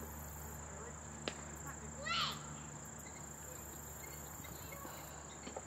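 Insects singing steadily at one high pitch over a low hum. A short burst of chirping notes comes about two seconds in, just after a single click.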